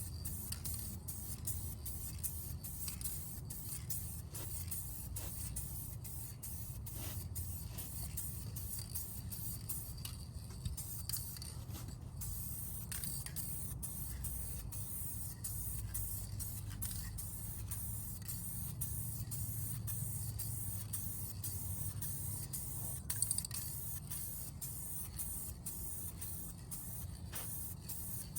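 Aerosol spray-paint can hissing steadily as base colour is sprayed onto a car's trunk lid in passes; the hiss drops out briefly about ten seconds in. A low steady rumble runs underneath.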